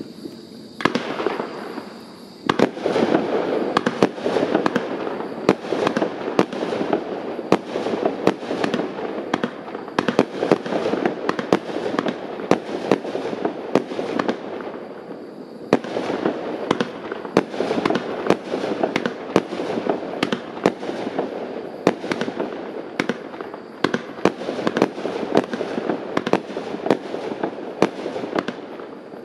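Argento "Fiori" 36-shot firework battery firing: a fast, continuous run of launches and bursting shells that starts about a second in. It eases briefly twice, shortly after the start and near the middle.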